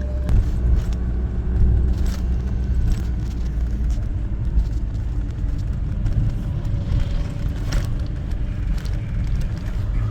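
A bus running along a road, heard from inside: a steady low engine and road rumble with scattered light rattles and clicks.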